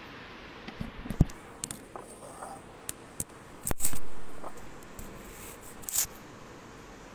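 Handling noise from a phone being picked up and moved: scattered knocks, taps and rubbing against the microphone over a steady low hiss, the loudest knock about four seconds in and another near six seconds.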